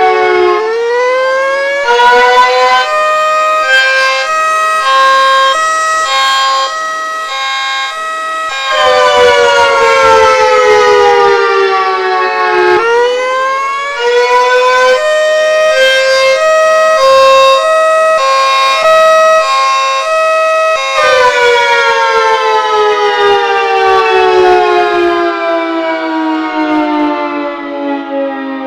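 A warning siren being tested. Its pitch dips and climbs, then switches back and forth between two pitches for several seconds. It falls and rises again into a second stretch of two-pitch switching, then winds down in a long falling tone over the last several seconds.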